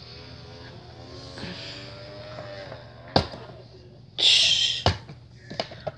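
Plastic toy front-loader garbage truck being worked by hand: a sharp click about three seconds in and another just before five as its forks lower a toy bin, with a loud hiss of about half a second between them. A faint drawn-out hum runs underneath.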